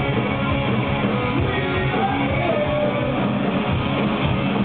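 Stoner rock band playing live: distorted electric guitars with bass and drums in a steady loud wall of sound. It sounds dull, as in a crowd recording that keeps nothing of the highs.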